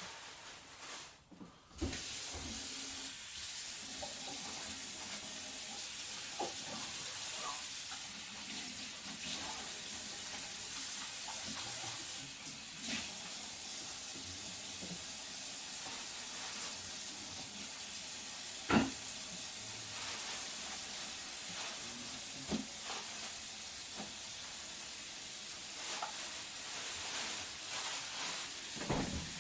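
Kitchen tap turned on about two seconds in and running steadily into the sink, with a few knocks and clinks of things being handled, the sharpest about halfway through.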